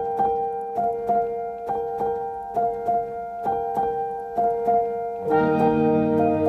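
Background music: a repeating melody of struck notes, about two a second. About five seconds in, fuller sustained chords and a bass line join in.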